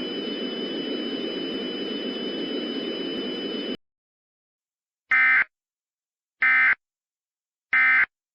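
A steady hiss with a faint high whine cuts off abruptly, and after a short silence come three short, identical warbling data bursts about 1.3 seconds apart. The bursts are an Emergency Alert System end-of-message code, which marks the end of the warning broadcast.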